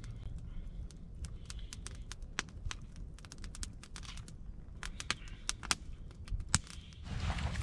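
Wood campfire crackling: irregular sharp pops and snaps, with a louder rustle near the end.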